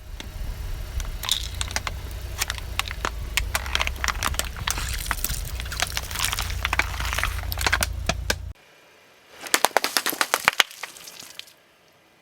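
Car tyres rolling slowly over objects and crushing them: a dense run of cracking and crackling over the low rumble of the car. About eight and a half seconds in it cuts off, and a quick burst of sharp cracks follows.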